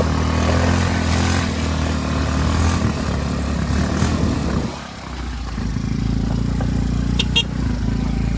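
ATV engine running while riding, easing off briefly about halfway through and then picking up again. Two short high beeps near the end.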